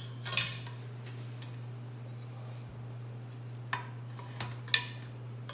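Stainless steel pot and metal strainer clinking and clanking as they are handled: a few sharp metallic knocks, one near the start and three more late on, the loudest just before the end, over a steady low hum.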